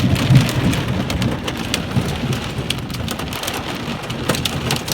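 Hail and heavy rain pelting down: a dense steady hiss with many sharp ticks of hailstones striking a hard surface.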